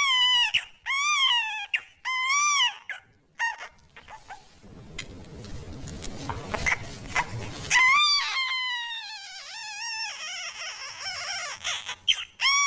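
Newborn baby crying in short, high-pitched wails that rise and fall, several in a row. A quieter, noisy stretch with small clicks comes in the middle, then a longer cry and more short wails.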